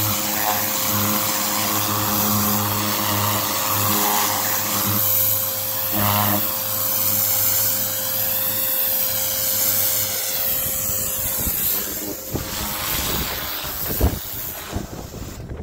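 Kärcher high-pressure washer running: the electric pump's steady hum under the hiss of the water jet blasting the concrete. The hum dies away about two thirds of the way in, leaving a rougher hiss and a single sharp knock near the end.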